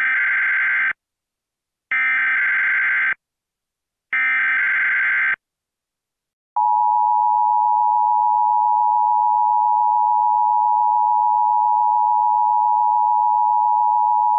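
Emergency Alert System activation: three short bursts of SAME header data, about a second each and two seconds apart, then after a pause the steady EAS two-tone attention signal held for about eight seconds.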